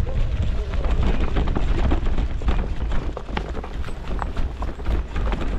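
Mountain bike rattling and knocking over a rough trail, with a dense run of irregular clicks and knocks, under a heavy low rumble of wind on the microphone.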